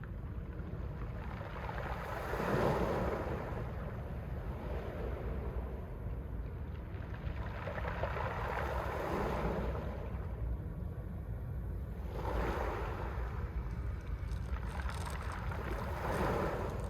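Mediterranean sea waves breaking and washing up a pebble shore, four surges a few seconds apart, over a steady low rumble.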